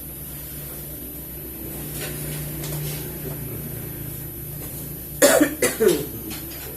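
A man coughing in a quick run of three or four coughs about five seconds in: the lung cough being treated.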